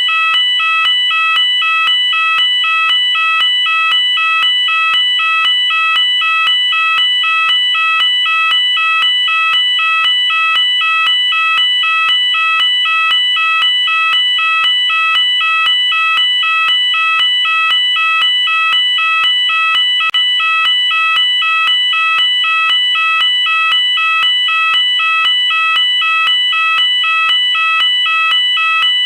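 UK electronic fire alarm sounder going continuously: a loud, steady two-tone warble that switches between a lower and a higher tone a few times a second. There is a momentary dropout about twenty seconds in.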